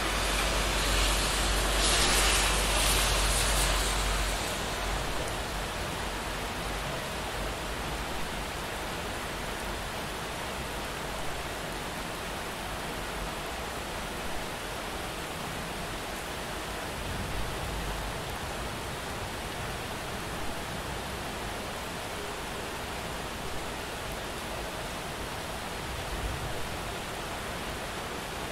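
Steady rain falling in a city street, with a car passing over the wet road during the first few seconds, its tyre hiss and low rumble swelling and then fading. Occasional faint taps of drops stand out over the rain.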